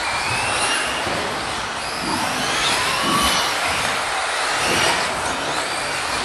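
Several electric 1/10-scale 2WD off-road RC buggies racing: high motor whines rising and falling as they speed up and slow down, over a steady hiss of tyres on the carpet track.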